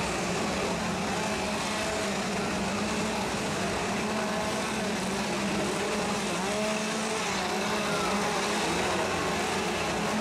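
Several chainsaws revving, their engine pitch rising and falling in overlapping swells over a steady drone.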